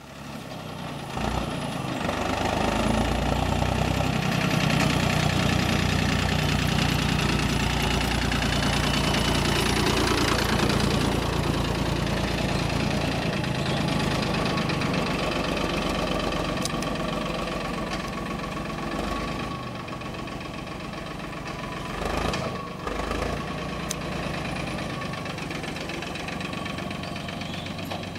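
Engine of a 1965 McCormick 326 tractor running steadily as the tractor drives off, getting gradually quieter as it moves away, with a short louder knock about two-thirds of the way through.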